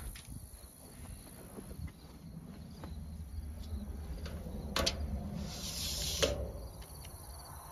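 Crickets and other insects chirring steadily over a low outdoor rumble. A few light knocks and a brief scrape come a little past the middle, as a tape measure is handled against the metal stock tank.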